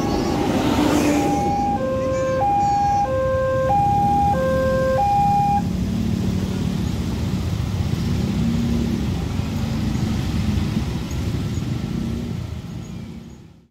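A two-tone hi-lo siren alternating between a higher and a lower note about every half second for roughly the first five seconds, over the steady hum of many motorcycle engines. The motorcycles go on running as they ride across a railway level crossing, and the sound fades out near the end.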